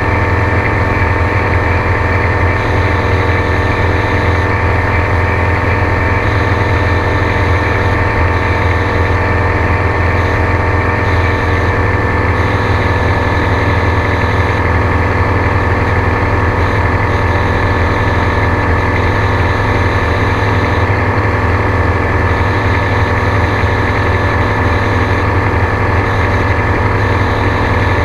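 Gyrocopter engine and propeller running steadily: a loud, constant drone that holds one pitch throughout.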